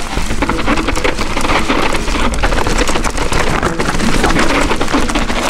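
Mountain bike clattering down a steep, rough, technical trail: a dense, rapid run of knocks and rattles as the tyres, chain and frame hammer over roots and rocks.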